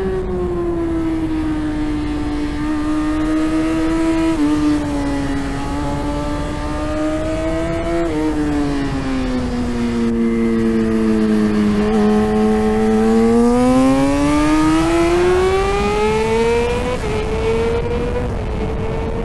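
On-board sound of a 2017 Yamaha R6's 600 cc inline-four at racing revs. The engine note sinks as the bike slows for a corner, then climbs hard under acceleration, with short gear-change dips about 4 and 8 seconds in and near the end. A steady rush of wind runs underneath.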